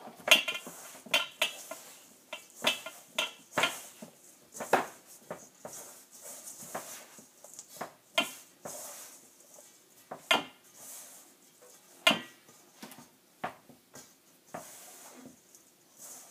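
Irregular knocks and clatters of a mixing bowl as Irish soda bread dough is mixed and worked by hand, a few of the knocks ringing briefly.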